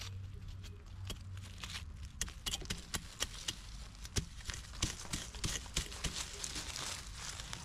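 Hand work in a flower bed clean-up: a quick, irregular run of sharp clicks and crackles, several a second, over a low steady hum.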